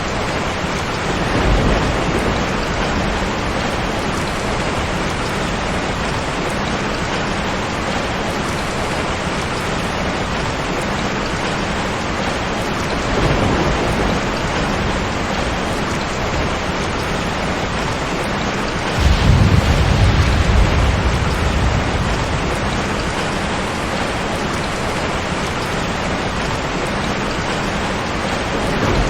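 Steady heavy rain with rolls of thunder; the loudest low rumble of thunder swells up about two-thirds of the way through, with fainter rumbles near the start and the middle.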